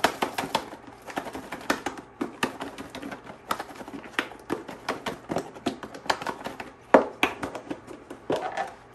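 Lidded Tupperware container shaken by hand, with chunks of raw halibut, ground halibut, seasoning and olive oil knocking inside it and against the lid. An irregular run of knocks, several a second, with one louder knock about seven seconds in.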